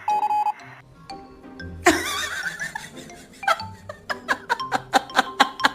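Music with a rapid electronic beeping at the start, then a sudden loud onset about two seconds in and a quick run of short, evenly spaced strikes in the second half.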